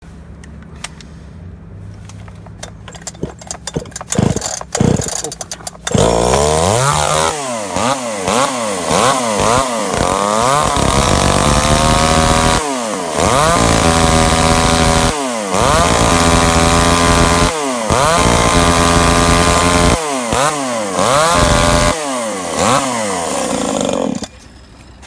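Tanaka ECS-3309 two-stroke top-handle chainsaw: a few quiet clicks and knocks, then the engine starts about six seconds in. It revs up and down repeatedly and holds high revs while cutting into wooden pallets. It stops abruptly near the end.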